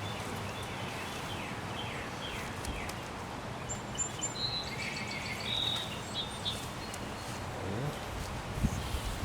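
Steady outdoor background noise with a bird chirping in short repeated notes for a couple of seconds in the middle, and a single sharp knock near the end.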